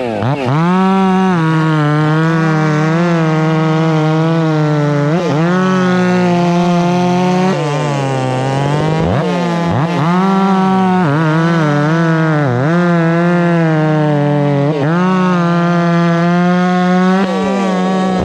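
Two two-stroke chainsaws running together at high revs, at slightly different pitches. Each pitch dips briefly now and then and recovers, as when a chain is loaded in a cut and the throttle is eased and opened again.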